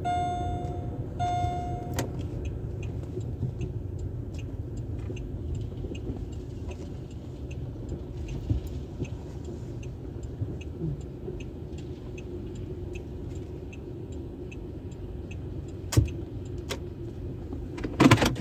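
Car engine running at idle, heard inside the cabin, with a dashboard warning chime repeating about once a second that stops about two seconds in. A light regular ticking, about twice a second, runs over the engine, and two sharp knocks come near the end.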